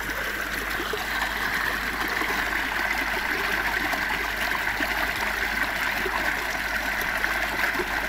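A small waterfall and the stream below it flowing: a steady, even noise of falling and running water.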